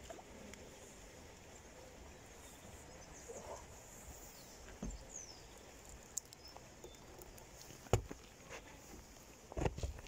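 Quiet lakeside outdoor background with faint bird chirps, broken by a few short knocks and bumps close to the microphone, the loudest about eight seconds in and a couple more near the end.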